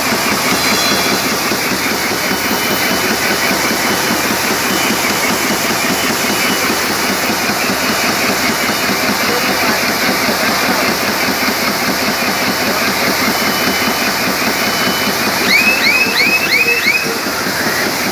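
Polystar RH wicketer bag-making machine running with a steady, rapid mechanical clatter and a hiss. Near the end comes a quick run of about five short high squeaks.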